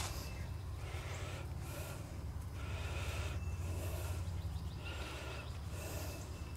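A person breathing heavily through the nose, about one breath a second, each with a faint whistle, over a steady low hum.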